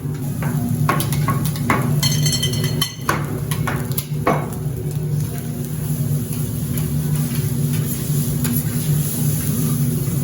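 Food sizzling on a teppanyaki iron griddle, with metal spatulas clicking and knocking against the plate and a brief ringing tone about two seconds in, over a steady low hum.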